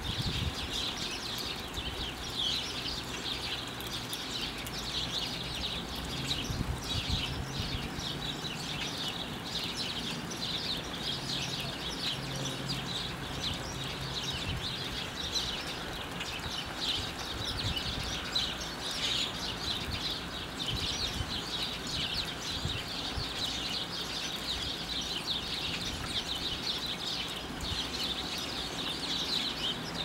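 A foraging flock of house sparrows and common grackles, a dense, continuous chatter of short chirps and calls with no breaks.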